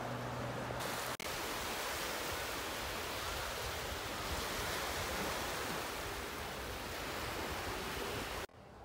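A steady, even rushing noise with no distinct events; it breaks off for an instant about a second in and cuts off abruptly near the end.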